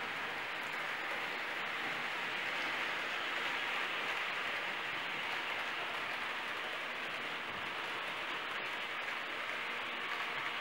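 Märklin H0 model freight train running on C-track: a steady rolling noise of the wagons' wheels on the track, slightly loudest midway as the wagons pass closest.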